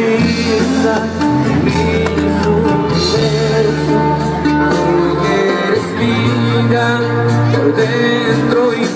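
Live regional Mexican band music: a tuba playing a low bass line under guitars, with singing.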